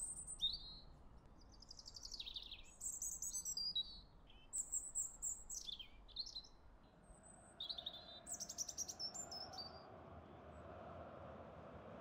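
Small songbirds singing a string of short chirps, whistled notes and fast trills, which stop about ten seconds in. From about two-thirds of the way through, a steady, even rushing noise rises and takes over.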